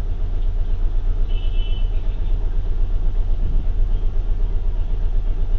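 Steady low background rumble, with a short high-pitched tone about a second and a half in.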